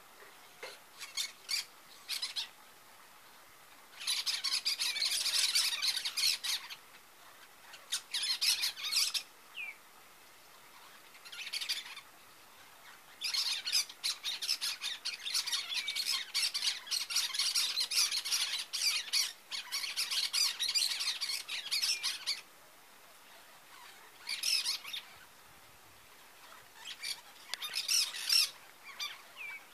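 Cactus parakeets (caatinga parakeets) calling: high-pitched chattering squawks in bouts of a few seconds, the longest about nine seconds, with quiet gaps between.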